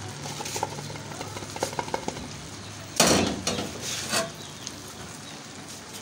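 Metal spoon scraping and clinking against a pan as egg-and-potato masala is emptied onto the rice in a biryani pot: light clicks at first, then a louder scrape about three seconds in and a shorter one a second later.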